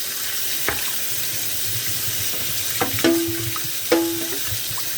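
Kitchen tap running into the sink, with a few knocks of dishware against the sink; two of the knocks ring briefly about three and four seconds in.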